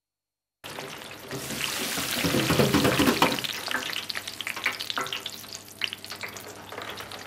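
Chips deep-frying in hot oil in a fryer basket: a bubbling sizzle that starts about half a second in, swells to its loudest between two and three seconds in, then settles to a steadier crackle with scattered pops.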